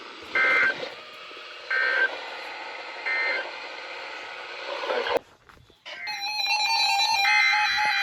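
Three short bursts of warbling digital data tones over radio hiss, about a second and a half apart: the SAME end-of-message signal that closes a weather-radio emergency alert. About five seconds in the hiss cuts out. Shortly after, an electronic sequence of stepped beeping tones starts.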